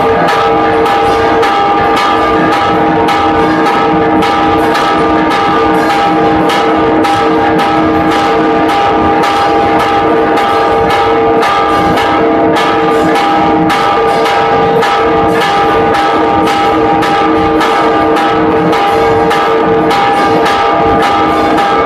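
Church tower bells rung in a fast repique, the large bell's clapper pulled by a hand rope in even strokes about three a second over a continuous ringing hum of other bells. This is the first call to Mass.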